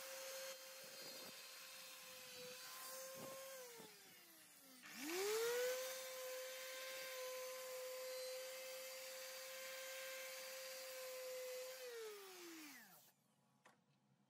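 Electric random orbital sander running with a steady motor whine while sanding the end of a wooden rail. It winds down about four seconds in, spins back up a second later and runs steadily, then winds down to a stop near the end.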